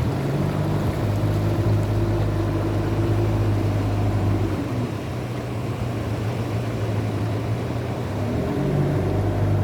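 Motorboat engine running steadily while under way, easing off a little about four and a half seconds in and picking back up near the end.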